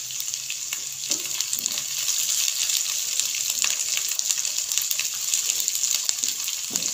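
Chopped onion, ginger-garlic paste and green chillies sizzling in hot oil in a non-stick karahi: a steady crackling hiss, with a spatula scraping and stirring through the mixture now and then.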